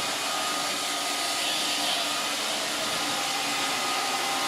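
Roomba robot vacuum running, a steady whirring hum with a faint high whine, as it works its way under a couch.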